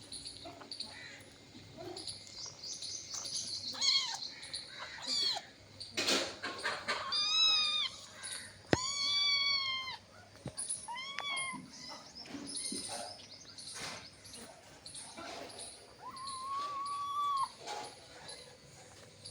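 Cat mewing: a handful of short, high calls that rise and fall in pitch, with the longest, steadier one near the end. A couple of sharp knocks sound around the middle.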